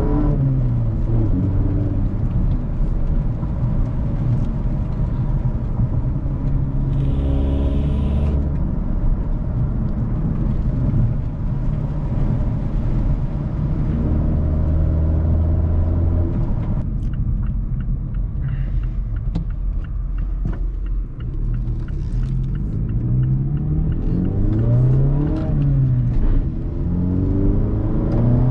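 Mazda 3's 2.5-litre four-cylinder engine fitted with an AEM cold air intake, heard from inside the cabin while driving. Its pitch rises and falls several times as the car accelerates and eases off, with steady road rumble underneath. The intake note is really aggressive under throttle.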